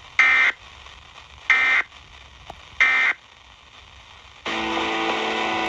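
Emergency Alert System end-of-message data bursts: three short, identical, harsh digital squawks about a second and a quarter apart, marking the end of the flash flood warning. After about four and a half seconds a steady hiss with a low hum comes in.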